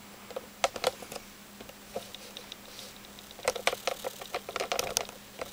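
Irregular light clicks and taps, bunched about half a second in and again from about three and a half seconds, over a faint steady hum.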